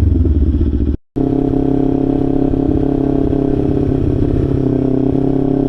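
2025 Kawasaki Ninja 500's parallel-twin engine running loud through an aftermarket Leo Vince LV Corsa exhaust, held at a steady engine speed while riding. The sound cuts out completely for a moment about a second in.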